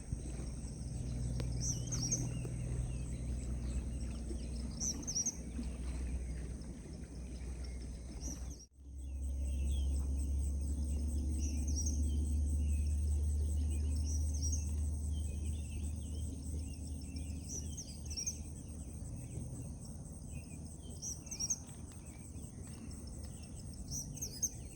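Outdoor ambience of insects droning steadily on a high pitch, with a bird chirping briefly every few seconds and more scattered chirping in the second half. A low rumble runs underneath, strongest after a cut about nine seconds in.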